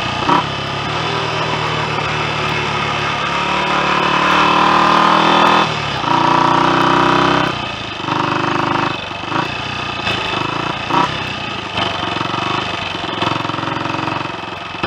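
Royal Enfield Continental GT 250's freshly rebuilt single-cylinder four-stroke engine running under way. Its note drops and picks up again several times after about six seconds, as the throttle is eased and reopened.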